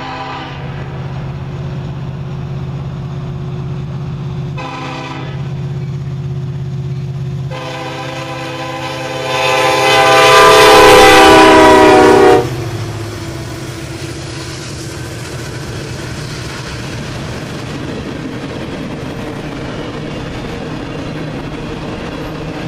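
Union Pacific diesel freight locomotive sounding its multi-note horn as it approaches and passes: a blast ending just after the start, a short toot about five seconds in, then a long, loud blast from about eight to twelve seconds in, over the low drone of the diesel engines. After the horn cuts off, the steady rumble and clatter of covered hopper cars rolling past.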